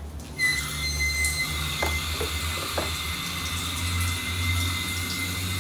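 Garden hose with a pistol-grip spray nozzle spraying water, starting abruptly about half a second in: a steady hiss with a thin high whistle from the nozzle.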